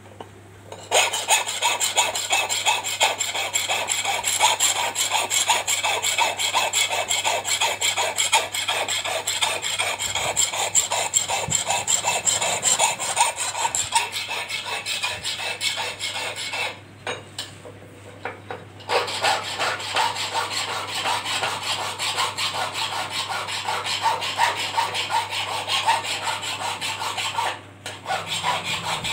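Hand file rasping on the steel blade of a 12-inch Taksali kirpan clamped in a bench vice, in quick, continuous back-and-forth strokes. The filing stops briefly twice, once about two-thirds of the way through and again near the end.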